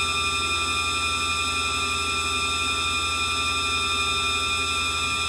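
Daewoo DMV-500 vertical machining center's 10,000 RPM spindle running steadily at 5,000 RPM, half its top speed: a steady high whine made of several tones over a low hum.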